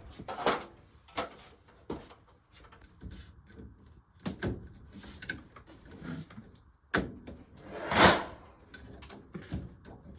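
An old fluorescent light fixture being handled and moved: scattered knocks and clunks, with a louder scrape about eight seconds in.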